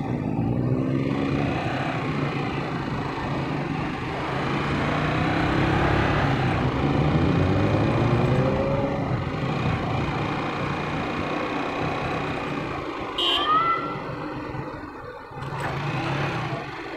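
Street traffic with a motorcycle engine close by, its pitch rising and falling several times as it speeds up and changes gear, with cars passing. About thirteen seconds in comes a short rising squeal.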